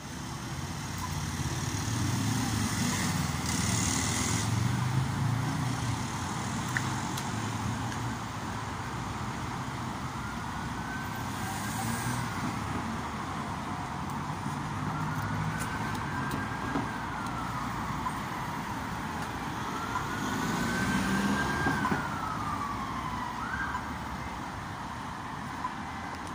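Emergency vehicle siren in a slow wail, rising and falling three times from about ten seconds in, with a quick upward sweep near the end, over the steady noise of passing traffic.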